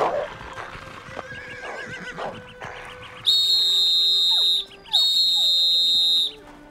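Emergency whistle blown in two long, steady, high-pitched blasts, starting about three seconds in, each lasting over a second. Before them, dogs growl.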